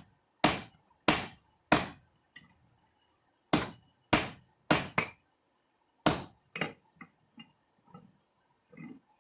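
Blacksmith's hammer striking hot rebar steel on an anvil: loud blows in short runs about half a second apart, separated by brief pauses, trailing off into a few light taps near the end.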